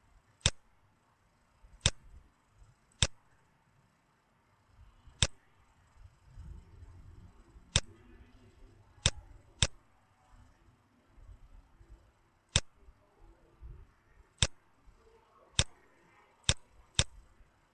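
Computer mouse button clicked about a dozen times at irregular intervals, each a single sharp click, over faint room noise.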